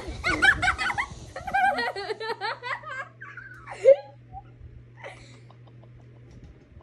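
Laughter in quick short bursts through the first three seconds, with one louder burst about four seconds in, then dying away to faint sounds.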